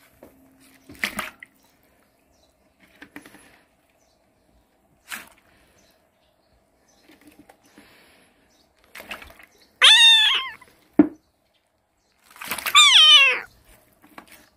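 A cat meowing twice, two long calls that fall in pitch, about ten and thirteen seconds in. A few faint knocks and clicks come before them.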